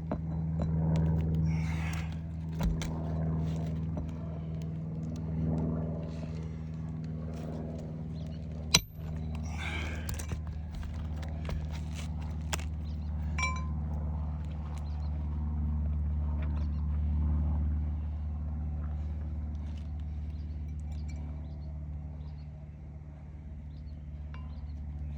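A steady low machine hum, with scattered light clicks and taps and one sharp click about nine seconds in.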